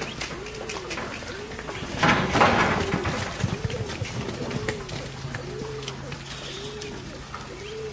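A dove cooing over and over: short coos that rise and fall in pitch, about one a second. A loud rushing noise about two seconds in lasts roughly a second.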